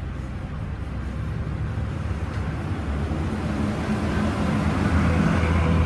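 A motor vehicle engine running with a steady low hum, growing louder over the last couple of seconds.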